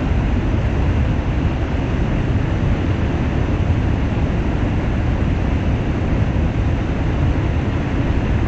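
Heavy rain falling steadily, a dense even hiss with a deep rumble underneath.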